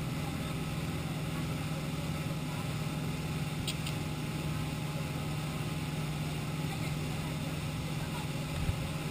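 Dive boat's motor running steadily underway, a constant low hum under the even rush of water and wind.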